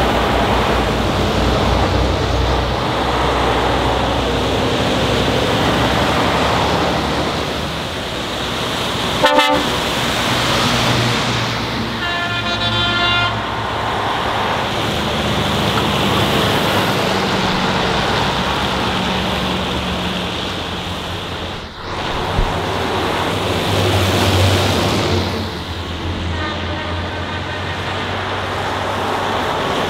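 Tatra trucks driving past in a parade with their engines running. Horns sound several times: a short toot about nine seconds in, a longer blast around twelve to thirteen seconds, and another near the end.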